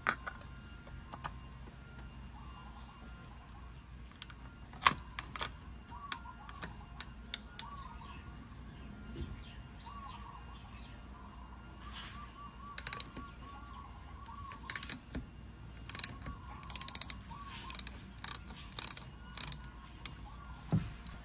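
A 3/8-inch drive ratchet clicking in short bursts as it turns a cap-type oil filter wrench to loosen a scooter's oil filter. The clicks come more often in the second half, and birds chirp faintly in the background.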